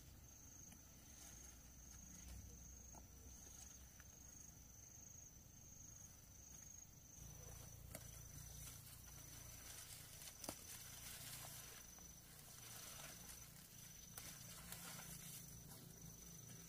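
Faint insect chirping, a thin high trill broken into regular pulses about once a second. Soft rustling and the odd snap of leafy stems being picked by hand come in from about halfway.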